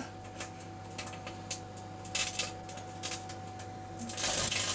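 Microwave oven running with a steady hum while compact discs inside arc and spark, giving irregular sharp crackles and pops. A thin steady tone in the hum cuts out near the end as a hiss swells.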